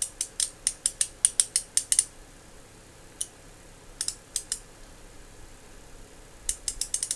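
Harbor Freight Icon 3/8-inch-drive ratchet clicking as its pawl skips over the gear teeth, checked for ratcheting just after reassembly. A quick run of about a dozen clicks comes first, then a few scattered clicks, then another quick run near the end.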